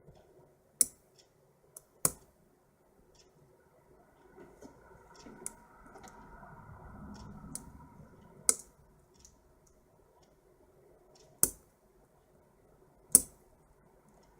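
Lock picks working inside a small Master Lock padlock: light metallic clicks of the pick and tension wrench in the keyway, with about five sharper, louder clicks spread through, and a faint scraping between them.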